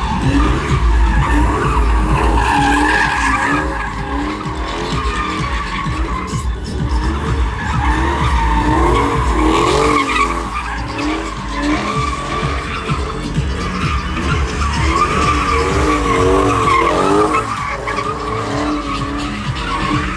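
A car doing donuts: the tyres squeal without a break while the engine revs up and down over and over.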